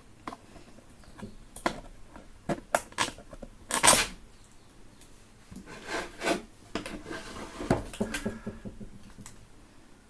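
Irregular clicks, taps and short scrapes of tools working on a speaker amplifier's circuit board while an amplifier IC is being taken off. The loudest is a sharp scrape about four seconds in.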